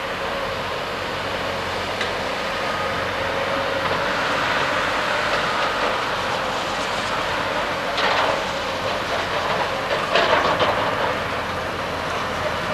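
Hydraulic excavator running and digging on the slope, its engine noise steady, with bursts of metal clanking and scraping from the bucket about 8 seconds and 10 seconds in.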